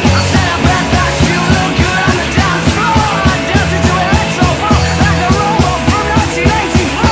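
Loud rock music with a fast, steady drum beat and a lead voice or guitar line.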